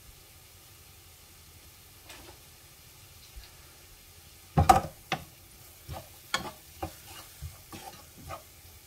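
Chopped onions frying gently in oil in a non-stick pan with a faint sizzle. About halfway through, a utensil starts stirring them, knocking and scraping against the pan in a run of short strokes, the first one the loudest.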